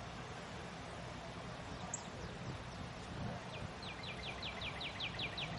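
A songbird singing a rapid series of about ten short downslurred notes in the second half, after a single high chip about two seconds in, over steady outdoor background noise.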